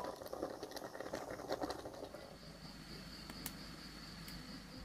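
Faint bubbling of a pot of cassava leaves boiling in water, with scattered small pops in the first two seconds. A faint steady high tone comes in a little under halfway.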